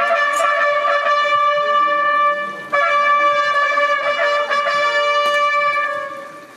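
A small brass group led by trumpets playing two long held chords, with a short break between them about two and a half seconds in; the second chord fades out near the end.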